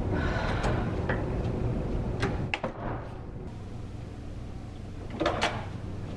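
A classroom door with an overhead closer swinging shut: a few clicks, then the latch clicking home about two and a half seconds in, after which only a low steady room hum is left. A couple more knocks come near the end.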